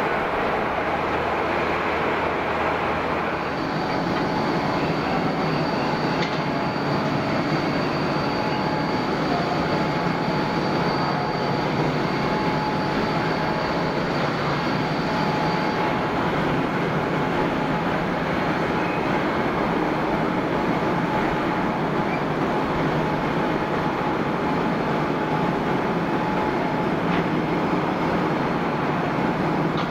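Boeing 777-300 jet engines running, a steady roar with a thin high whine through the first half.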